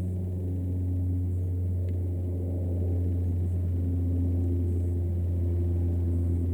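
Low, steady drone of an aircraft passing overhead, with several engine tones that shift against each other and swell a little toward the end. The observer likens the drone to an Antonov's.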